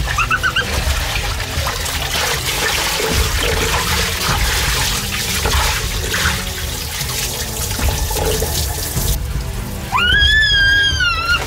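Water rushing and splashing down a tunnel water slide into a pool channel as a person slides through. About ten seconds in, a loud high-pitched call rises, holds and falls away.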